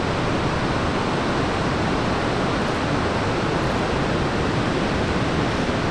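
Large breaking ocean surf: a steady, even wash of noise with no single wave crash standing out.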